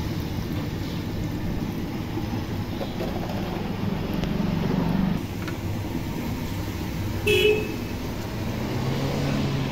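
Steady road-traffic rumble of passing vehicles, with one short vehicle horn toot about seven seconds in.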